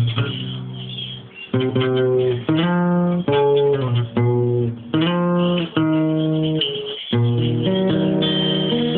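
Acoustic guitar played alone. A chord rings and fades, then strummed chords resume about a second and a half in, changing roughly once a second.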